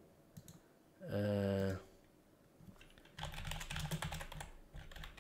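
Computer keyboard typing, a quick run of key clicks from about three seconds in, with a few more near the end. About a second in there is a short voiced hum.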